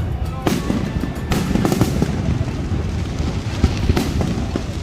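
Fireworks going off: several sharp bangs, about four, over a continuous low rumble of bursts.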